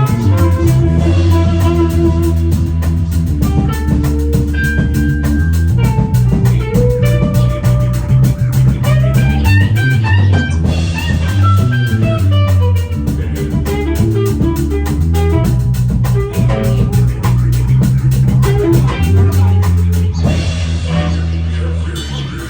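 Rock band music: a guitar melody over bass guitar and a drum kit keeping a steady beat, fading out near the end.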